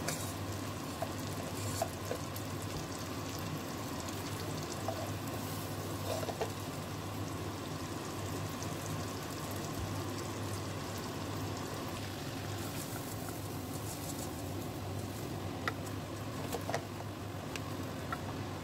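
Butter melting and gently sizzling in a stainless steel saucepan, the start of a roux, with a few light taps of a wooden spatula against the pan over a steady low hum.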